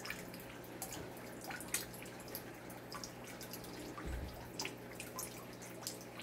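Water dripping and splashing into a large aquarium, irregular drips over a steady low hum from the tank's pumps. A soft low thud about four seconds in.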